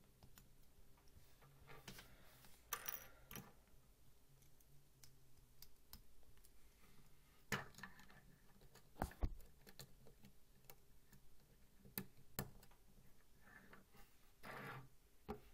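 Faint, scattered clicks and taps of small plastic Lego pieces being handled, pressed together and set down on a wooden table, with a sharper click about nine seconds in and a brief rustle near the end.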